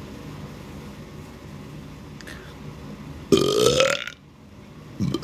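A woman's single loud belch about three seconds in, lasting under a second, from swallowed carbonated sparkling water; the seconds before it are quiet room tone.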